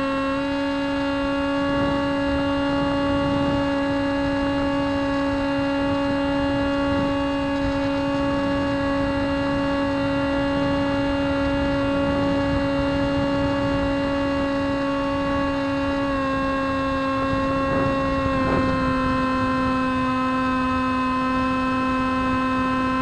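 Electric motor and propeller of a Bixler foam RC plane, heard through its onboard camera, whining at a steady pitch in flight and stepping slightly lower about two-thirds of the way through as the throttle eases, over a low rush of wind on the microphone.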